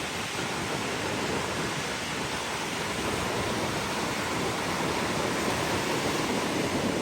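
Steady rush of ocean surf breaking on a beach, an even wash of noise without distinct crashes.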